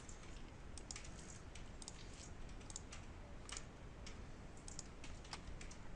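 Faint, irregular clicks of a computer keyboard being typed on, over a low steady room hum.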